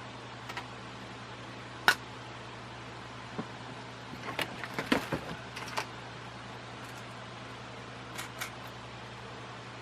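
Scattered clicks and knocks of ceiling fan parts being handled during assembly: the loudest about two seconds in, a busy cluster around the middle, and two light taps near the end, over a steady low hum.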